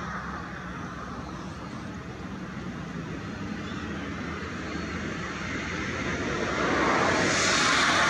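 Steady background hum of outdoor engine noise, with a passing vehicle swelling louder near the end.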